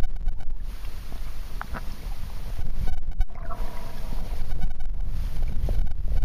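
Muffled underwater noise from a submerged camera: a low rumble of moving water against the housing, with a couple of faint chirps about a second and a half in and a faint brief tone a little past the middle.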